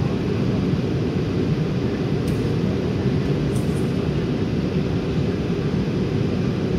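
Steady cabin noise of a jet airliner in flight: turbofan engine and airflow noise heard from inside the cabin as an even, low rush.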